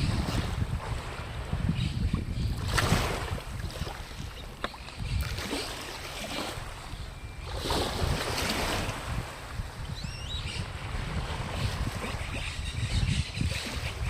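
Wind buffeting the microphone as a steady low rumble, with louder rushing swells of noise about three seconds in and again around eight seconds.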